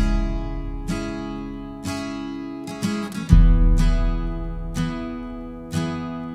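Instrumental intro of a recorded song: acoustic guitar strumming slow, ringing chords about once a second, with a deep bass note joining under the chords a little past three seconds in.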